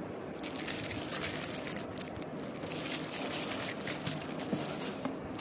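Clear plastic bag of balloons crinkling as it is handled, a rustling crackle starting about half a second in, with a short break near the end.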